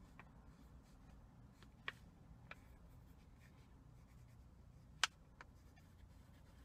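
Pencil writing on paper, faint, with a few light taps and clicks, the sharpest about five seconds in, over a low steady hum.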